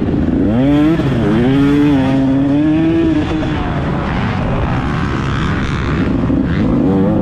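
Racing engine of an off-road race vehicle at full throttle. Its pitch dips and climbs about a second in, as at a gear change, holds fairly steady for a couple of seconds, then revs up and drops again near the end.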